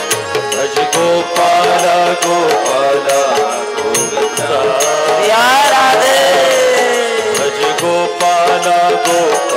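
Devotional kirtan music: a male voice sings a long, drawn-out melodic phrase that rises in a glide about halfway through, over sustained accompanying instrument notes and frequent sharp hand-percussion strokes.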